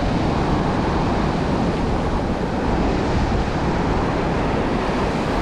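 Steady rush of surf and shallow wash running up the sand, with wind buffeting the microphone.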